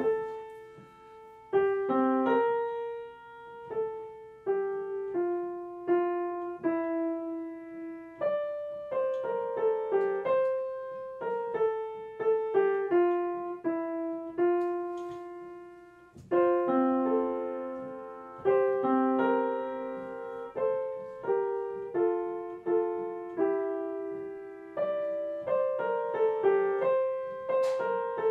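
Background piano music: a gentle melody of struck notes and chords, each dying away, in phrases that pause briefly about 8 and 16 seconds in.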